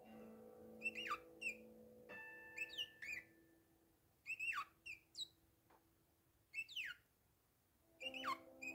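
Bourke's parakeets giving soft whistled calls: a series of short notes that each fall quickly in pitch, about one every second or so, with gaps between. Sustained background music notes lie underneath, dropping out early and returning near the end.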